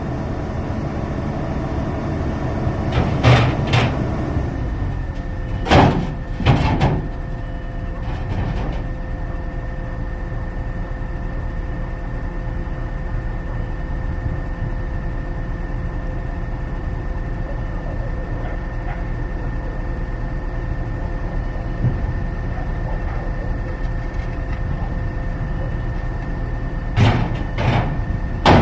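Diesel engine of a PC200 excavator running steadily with a hum and whine, broken by several sharp clanks and bangs: a few in the first seven seconds and a couple more near the end.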